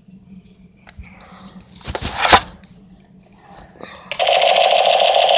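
A brief loud rustle about two seconds in, then a battery-powered toy minigun starts up about four seconds in with a steady motorised whirring buzz that keeps going.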